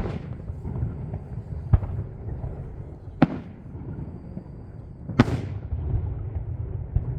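Aerial firework shells bursting: four sharp bangs about one and a half to two seconds apart, the last trailing off with a longer hiss, over a steady low rumble.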